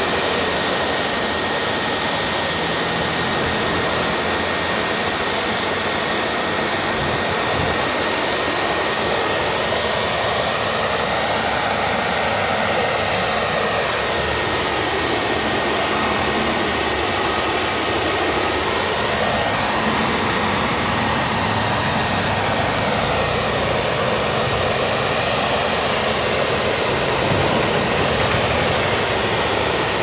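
Commercial high-pressure washer spraying a car with water: a loud, steady rushing hiss with a thin, steady whine over it. The hiss shifts slowly up and down in tone as it goes.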